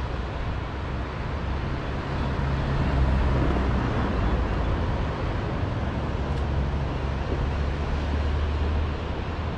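Wind buffeting the microphone: a steady low rumble with a hiss over it, swelling about three seconds in.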